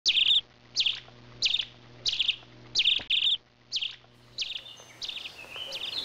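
A sparrow chirping: a short, loud cheep repeated about every two-thirds of a second, with other chirps overlapping from about five seconds in.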